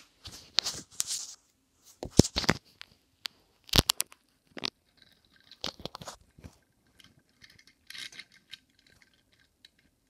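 A toy car pushed by hand along a board: irregular clicks, knocks and short rolling scrapes, with the sharpest taps in the first four seconds.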